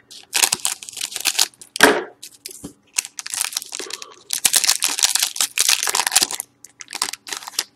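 Foil wrapper of a 2012-13 Panini Limited hockey card pack being snipped with scissors and pulled open by hand, crinkling and tearing in a string of short crackly bursts.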